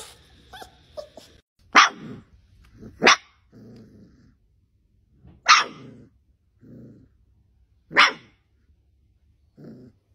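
A puppy barking: four sharp yaps about two seconds apart, with quieter low growls between them.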